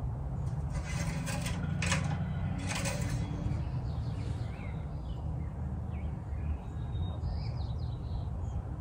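Engine oil dipstick being wiped with a cloth rag and slid in and out of its tube to check the oil level: a few brief rustling scrapes in the first three seconds, over a steady low hum.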